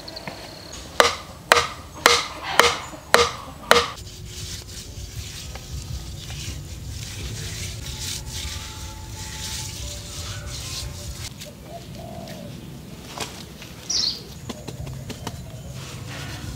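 Six sharp knocks in a steady rhythm, about two a second, each with a short ring, in the first few seconds. Birds call in the background, with one short gliding chirp near the end.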